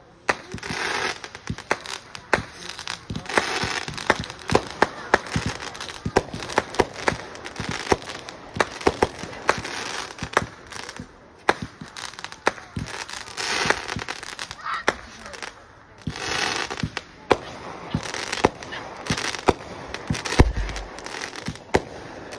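Aerial fireworks going off in quick succession: many sharp bangs through the whole stretch, with several bursts of crackling that each last about a second.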